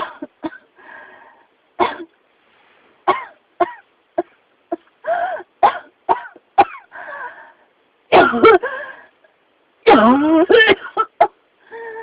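A person coughing over and over: a string of short coughs, some with a hoarse voiced tone, building to two longer, louder coughing fits about eight and ten seconds in. The uploader labels it a persistent cough from pneumonia.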